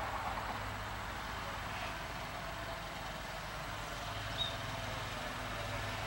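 Steady outdoor background hum and hiss, with a low drone underneath, and a single short high bird chirp about four and a half seconds in.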